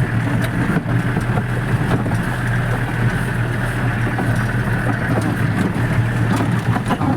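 Off-road jeep's engine running with a steady low drone, with frequent short rattles and knocks as the vehicle goes over a rough dirt track.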